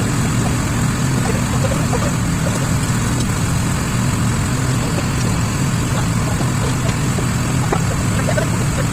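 Sawmill machinery running with a steady low hum that does not change.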